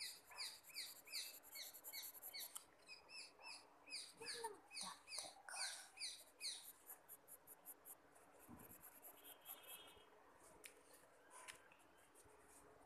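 Faint, rapid series of short high chirps, each falling in pitch, about three a second; they stop about six and a half seconds in. After that, faint pencil strokes scratching on paper.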